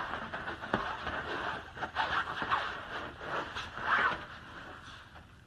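Scattered soft scrapes and clicks as a Labrador puppy shifts and settles on a raised fabric-covered dog cot.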